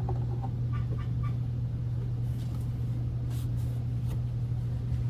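A steady low hum from a running motor or fan, with a few faint, brief scrapes or rustles over it.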